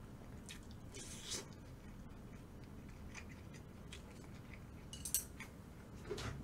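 Quiet handling of eating utensils and takeout food containers: a few faint clicks and short rustles, the clearest about a second in and again about five seconds in.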